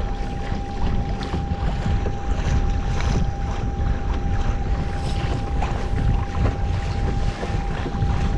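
Wind buffeting the microphone over moving water, with a steady, unchanging hum running beneath it.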